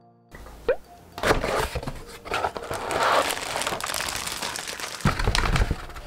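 Packaging being handled: clear plastic wrap crinkling and cardboard inserts rustling, scraping and being folded, with scattered clicks and snaps. It starts after a brief near-silent moment.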